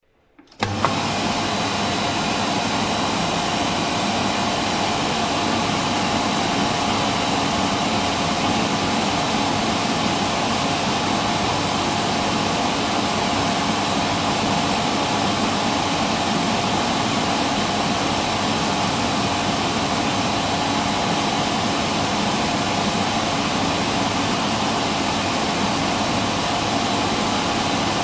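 Electric hand dryer switching on about half a second in and running steadily, a constant rush of blown air with a faint motor hum.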